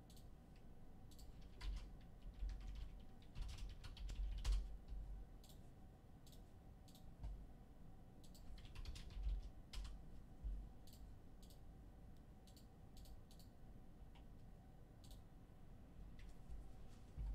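Computer keyboard typing: scattered, irregular keystrokes and clicks, faint, bunching into quicker flurries a couple of times.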